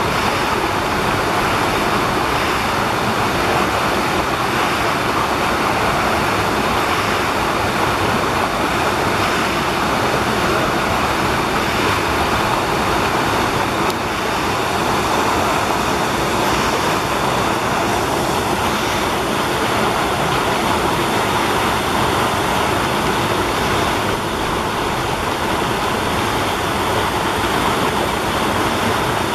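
A woodland brook cascading over rock ledges into a pool: a loud, steady rush of falling water.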